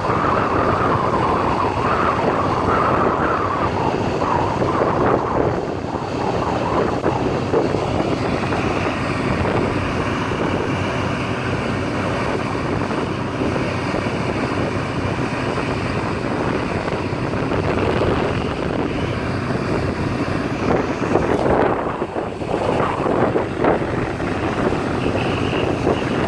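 Wind buffeting the microphone: a loud, steady rushing noise with a faint low hum underneath.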